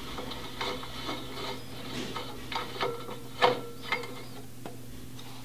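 A hex key working a screw into the fan shroud of a brake: a run of small, irregular metallic clicks and ticks, the loudest about three and a half seconds in, over a steady low hum.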